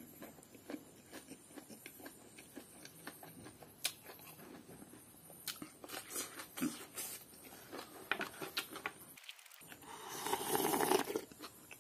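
Close-up eating by hand: soft chewing and lip smacks with small scattered clicks, then a sip of broth from a bowl, slurped, about ten seconds in.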